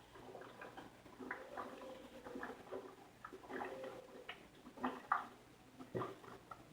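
A person gulping beer straight from a can while chugging it, a quick irregular series of faint swallowing gulps and clicks in the throat.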